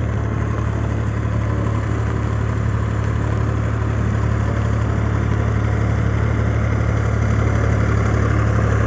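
Diesel farm tractor engine running steadily with a low drone, pulling through a waterlogged, muddy paddy field.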